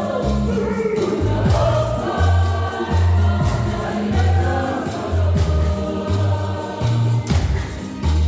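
Choir music with singing voices over a heavy, pulsing bass line and sharp percussion hits.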